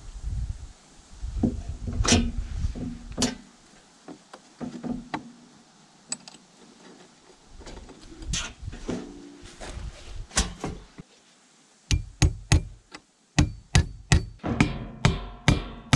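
Scattered knocks and clunks as a steel sheet is handled against a log wall, then, from about twelve seconds in, a quick run of sharp hammer blows nailing a hinge into the log.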